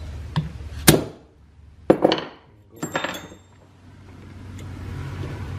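Three sharp metal-on-metal clinks with a brief ring, about a second apart, the first the loudest: a steel punch and small cast-iron and steel parts of an antique Pickering steam-engine governor being handled and set down on a wooden bench during its disassembly.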